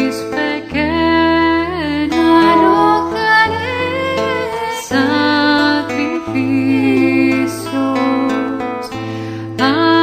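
Devotional choral song: voices singing sustained, gliding melody lines over instrumental accompaniment with a steady bass that moves to a new note every second or two.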